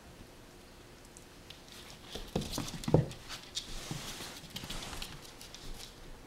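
Puppies' claws clicking and scrabbling on a wood-laminate floor as they play, with a few thumps, the loudest about three seconds in.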